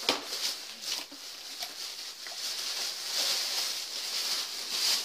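Clear plastic bag crinkling and rustling as it is worked off a new electric chainsaw, with a sharp crackle just after the start.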